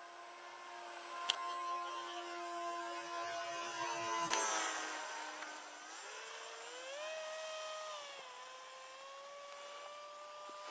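Electric motor and propeller of a ZOHD Nano Talon RC plane in flight, a steady whine that drops in pitch a little after four seconds, rises again about two seconds later, then settles at a lower pitch.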